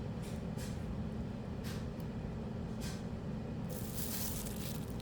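Steady rushing hiss of a handheld torch flame being played over curing polyurethane resin to pop bubbles. The hiss brightens about four seconds in.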